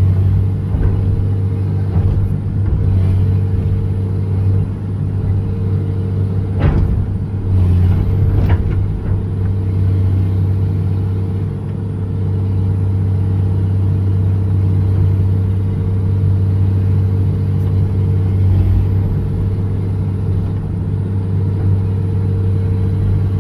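John Deere 200LC (Hitachi EX200) excavator's diesel engine running steadily under hydraulic load as the bucket digs into soft soil. A couple of sharp knocks come from the digging about a third of the way through.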